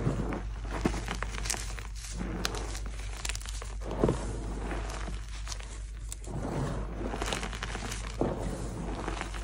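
Gloved hands squeezing and crumbling handfuls of soft pasted gym chalk: a steady crunchy crackling, with a louder crunch every second or two as a fresh handful is pressed and broken up.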